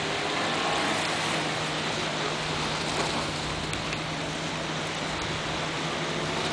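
A distant small engine drones steadily, its pitch sliding up and down, under a constant hiss of wind and surf.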